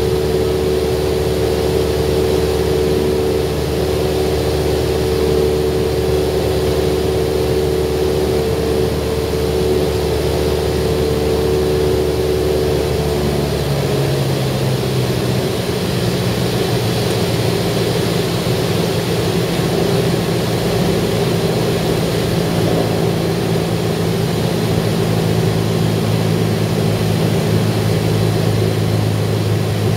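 Cessna 172R's four-cylinder Lycoming engine and propeller droning steadily, heard inside the cabin. About 14 seconds in, the engine slows to a lower, steady note as power comes back.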